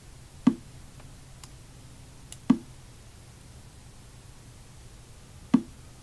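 Three sharp clacks of a chess program's move sound, one for each move played, spread a couple of seconds apart, with a few much fainter clicks between them.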